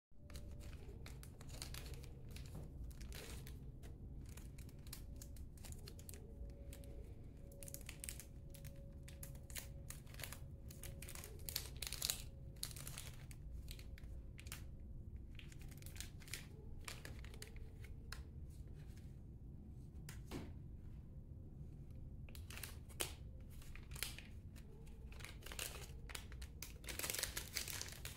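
Small plastic seed bag crinkling between the fingers as tiny geranium seeds are picked out of it, in many short, scattered rustles over a low steady hum.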